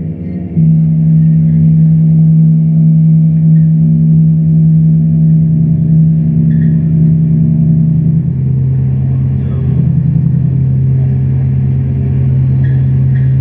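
Loud, low droning music from a live experimental set: steady stacked hum tones with a rough fluttering texture. It drops out briefly at the very start, and about halfway through the lowest tone steps down in pitch.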